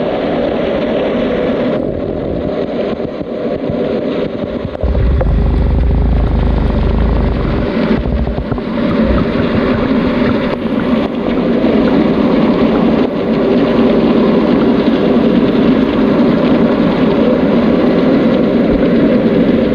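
A river heard underwater through a submerged phone's microphone: a loud, steady rumble, with a deeper surge from about five to eight seconds in.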